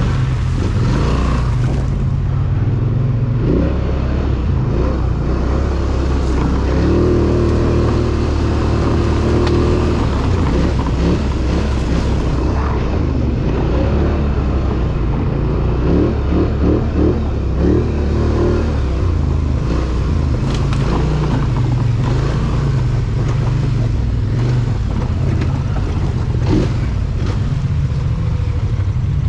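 ATV engine running while the machine rides along a trail. The engine speed rises and falls a little, and there are scattered knocks and rattles over rough ground.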